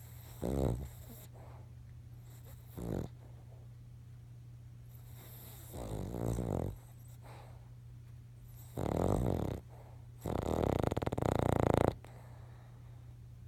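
Sleeping Cavalier King Charles spaniel snoring: five separate rattling breaths a few seconds apart. The last one, about eleven seconds in, is the longest and loudest.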